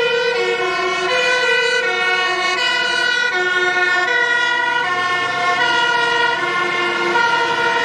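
Dutch fire engine's two-tone siren, a high and a low note alternating steadily.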